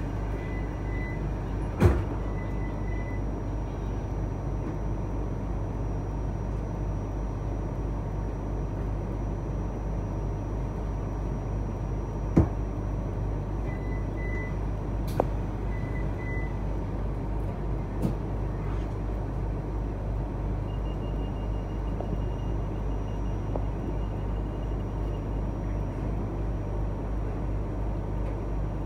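Cleveland RTA Green Line light-rail car running between stations: a steady low rumble with a few sharp knocks, the loudest about two seconds and twelve seconds in, and a few faint short high tones.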